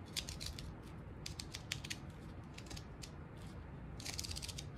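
A seam ripper cutting the red thread stitches of an official Major League baseball's cowhide cover, each stitch giving way with a short, sharp snap. The snaps come at irregular intervals, with a quick flurry of them near the end.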